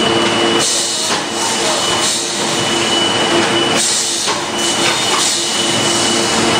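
SP-1220A automatic juice cup filling and sealing machine running, a steady mechanical din with repeated short bursts of hiss.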